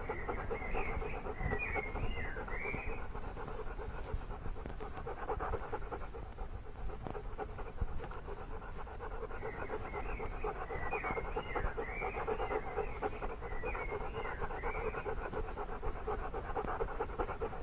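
A dog panting rapidly and steadily. Short high chirps come in two spells, near the start and again in the middle.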